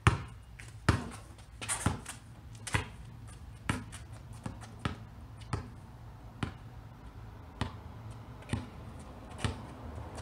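Basketball dribbled on a concrete driveway, about one bounce a second. The first bounces are the loudest and the rest are fainter.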